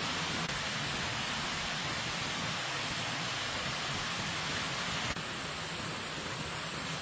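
Steady rain falling, an even hiss that drops slightly in level about five seconds in.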